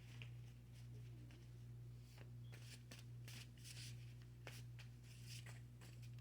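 Tarot cards being shuffled and handled: soft, scattered riffling and clicks over a steady low electrical hum.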